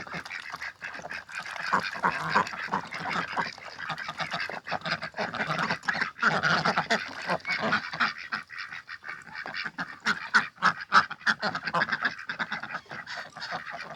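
Domestic ducks quacking and honking in a rapid, choppy run while a drake mounts a duck to mate, with many short sharp sounds crowding in over the second half.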